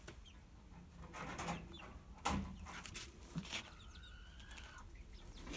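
Handling noises around a pigeon held in the hands: a few short knocks and rustles, one sharper click a little past two seconds in. A thin, steady whistle-like tone lasts about a second after the middle.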